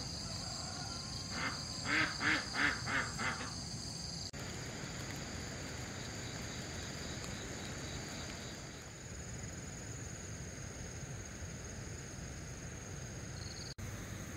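Rural dusk ambience: a steady high-pitched chorus of insects, with a bird calling about six times in quick succession about two seconds in.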